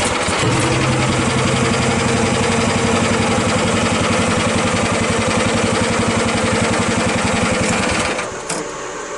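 Mini excavator's small engine running steadily as the machine backs up, with a fast even pulse and a low hum coming in about half a second in. Near the end the engine sound drops away sharply, leaving a quieter hum.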